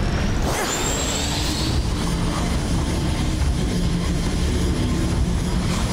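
Cartoon magic sound effects: a steady, jet-engine-like drone, with a rising whoosh about half a second in and a thin high tone from about two seconds on.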